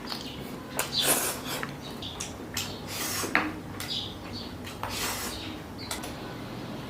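Eating bamboo-tube rice: chewing and light clinks of tableware, with a few louder noisy bursts about one, three and five seconds in.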